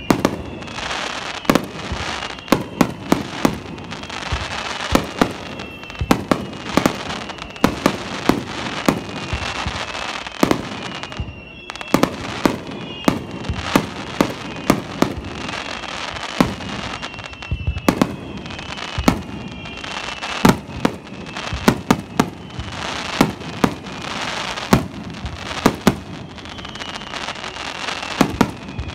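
Aerial fireworks display: shells bursting in quick succession, many bangs a second at times, over a constant crackle, with repeated whistles sliding slightly down in pitch.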